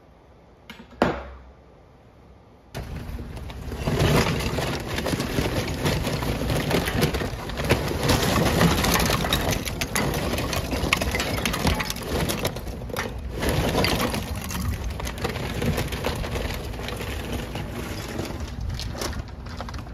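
Crackling and sizzling on a Kamado Joe charcoal grill, a dense stream of tiny pops that starts suddenly just under three seconds in. Before it there is a single sharp click about a second in.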